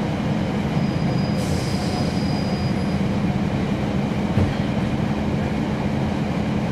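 Inside a NABI 40-SFW transit bus: the Cummins ISL9 diesel engine and ZF Ecolife six-speed automatic drivetrain run with a steady hum. There is a short hiss about a second and a half in and a single knock a little after four seconds.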